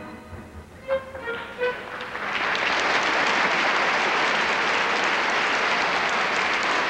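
A few short orchestral notes, then a theatre audience starts applauding about two seconds in and keeps clapping steadily.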